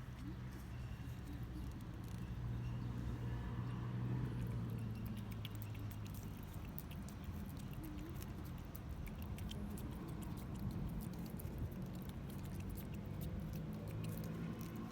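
A cat eating cat food, many small quick crunching clicks as it chews, over a steady low hum.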